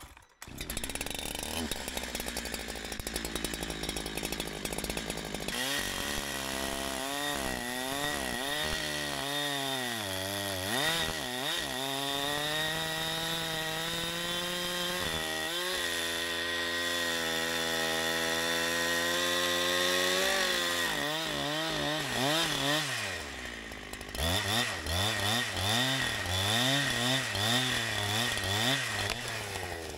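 Holzfforma G372XP two-stroke chainsaw with a 28-inch bar cutting into a dead, blown-down log. The engine holds steady revs for a few seconds, then its pitch sags and recovers again and again as the chain works under load. It drops briefly about three-quarters of the way through, then revs up and down unevenly.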